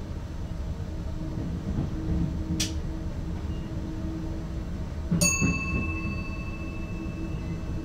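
Low steady rumble inside the cab of an ICM train, with a sharp click about two and a half seconds in and a single bell-like ding about five seconds in that rings on for a couple of seconds, typical of a cab signal bell.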